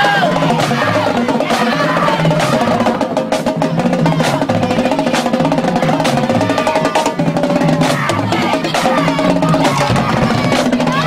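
Marching band drumline playing a fast cadence: rapid snare strikes and rolls over a moving pattern of low, pitched bass-drum notes.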